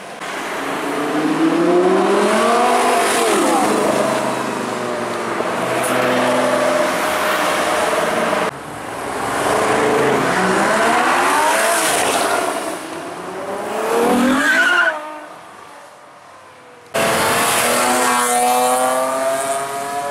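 Performance car engines accelerating hard at speed. Their pitch climbs through the revs, holds, then climbs again, and the sound changes abruptly twice. Near the middle one engine revs up high and then fades quickly.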